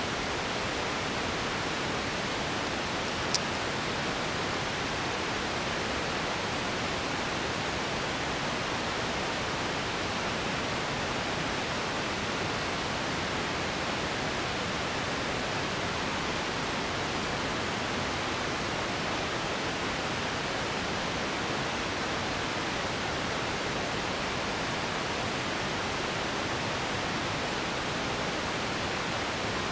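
Steady, even hiss at a constant level, with a single sharp click about three seconds in.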